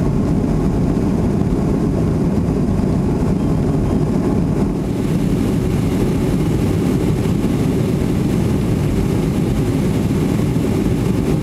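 Steady low rumble of a jet airliner heard from inside the cabin as it taxis after landing, with its engines at idle. A little more hiss joins about five seconds in.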